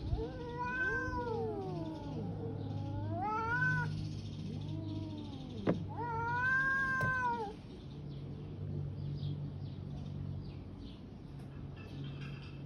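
Two cats yowling in a territorial standoff: three long, wavering caterwauls, the second rising in pitch at its end, with a sharp click between the second and third.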